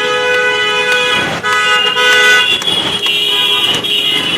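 Vehicle horns honking over street traffic noise: several long, steady horn blasts at different pitches, overlapping and repeating.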